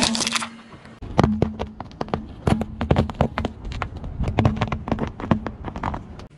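Car tyre rolling over and crushing objects on asphalt: a loud plastic crack right at the start, then from about a second in a long run of irregular crunches and snaps as the wheel flattens soft and brittle objects.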